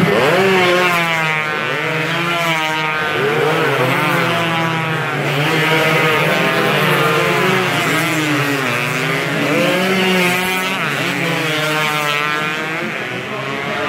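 Several two-stroke underbone racing motorcycles revving hard as a pack rides past, engine notes rising and falling again and again as they accelerate, shift and pass by, many engines overlapping at once.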